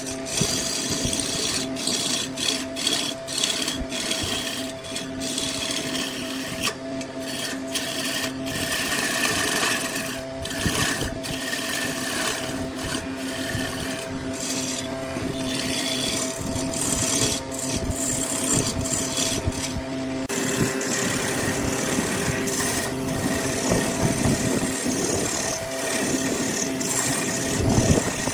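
Wood lathe running with a steady motor hum while a hand-held turning tool cuts into a spinning laminated wooden blank, a continuous scraping, rasping sound of the cut with scattered small ticks.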